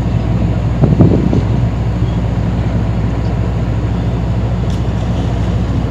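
A ship's engine running steadily, a low drone, with a short louder burst about a second in.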